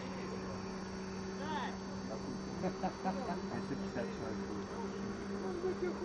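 A steady low hum, with faint distant voices now and then.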